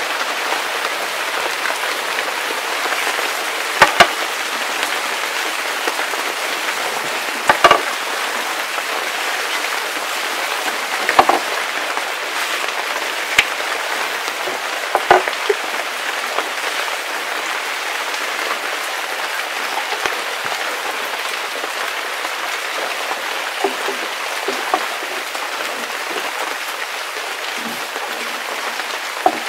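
Long thin wooden rolling pin knocking against a wooden board as dough is rolled out: a few sharp knocks a few seconds apart in the first half, fainter taps later. Under them runs a steady rain-like hiss.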